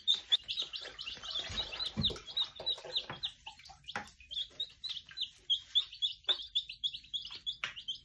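A brooder full of baby meat chicks peeping, a rapid stream of short, high, overlapping peeps, with a few soft knocks among them.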